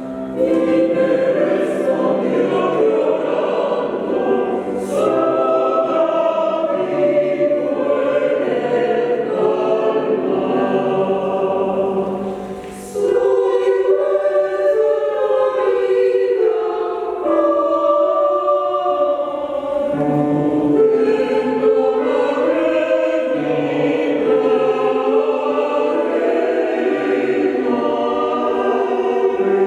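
Choir singing in several voice parts, with a brief break about twelve and a half seconds in before the voices come back in.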